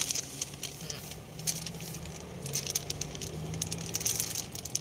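Low steady hum inside a car's cabin, with scattered light clicks and rustles of handling.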